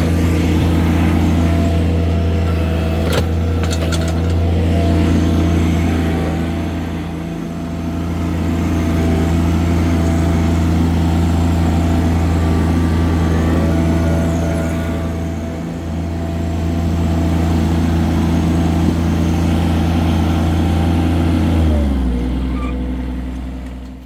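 Compact farm tractor's engine running steadily under way, heard from the driver's seat. Its pitch drops shortly before the end as it is throttled down.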